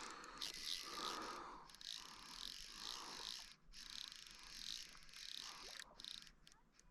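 Fly reel being cranked to wind in line, a rhythmic scratchy ratcheting of two to three strokes a second that fades out near the end.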